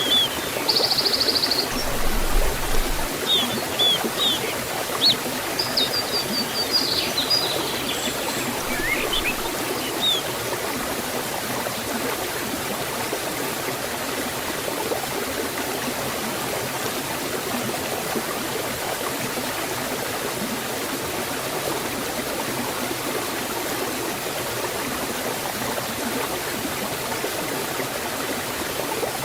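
Forest stream and small waterfall flowing with a steady water noise. Small birds chirp and trill over it during the first ten seconds or so, then only the water is heard.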